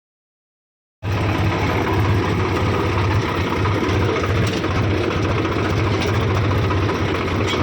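Tractor-driven wheat thresher running steadily: an engine's low hum with a fast, even rattle. It comes in abruptly about a second in, after dead silence.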